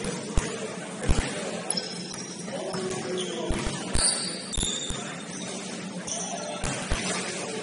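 Basketball bouncing on a hardwood court in irregular dribbles, with short high squeaks of sneakers on the floor in between.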